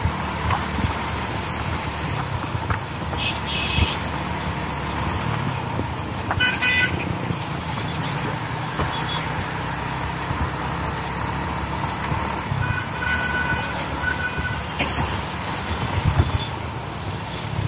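Riding a motorbike on a town road, heard from a phone on the bike: a steady rumble of engine and wind on the microphone, with passing traffic. Short vehicle horn toots sound about six and a half seconds in and again, broken into a few beeps, around thirteen seconds in.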